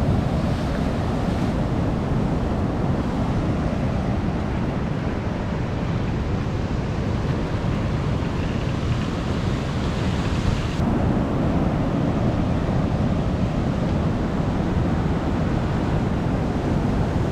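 Surf breaking and washing over rocks, a steady rush of ocean noise mixed with wind buffeting the microphone. The noise shifts abruptly twice, about a second and a half in and again around eleven seconds.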